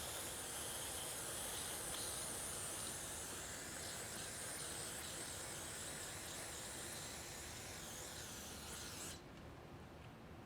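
Aerosol can of brake cleaner spraying in one long, steady hiss that stops abruptly about nine seconds in.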